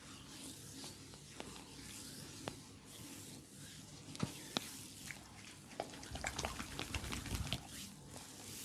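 Massage on a person's body: faint rubbing of hands on skin with scattered sharp clicks, and a busier run of clicks and soft thumps from about six to seven and a half seconds in.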